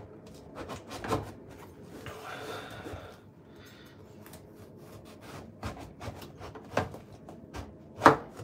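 Kitchen knife cutting through the thick rind and white pith of a banpeiyu (giant pomelo): a rasping stretch about two seconds in, and scattered sharp knocks, the loudest near the end.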